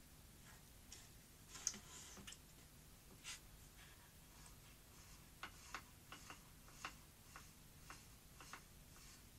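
Faint, irregular small clicks and taps from hands working in the drum belt and motor pulley area of an opened Philips N1700-type video recorder, with one sharper click about one and a half seconds in.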